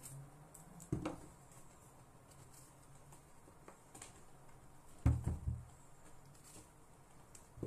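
Large zucchini being handled and set down on a wooden cutting board: a knock about a second in, then a louder run of dull thuds about five seconds in, with a faint low hum early on.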